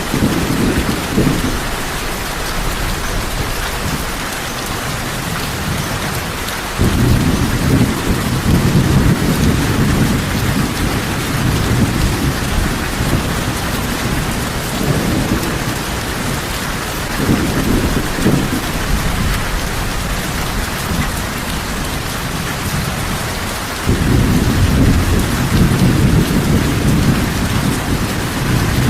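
Heavy rain falling steadily, with low rolls of thunder rumbling under it several times. The longest rolls set in abruptly about a quarter of the way in and again near the end.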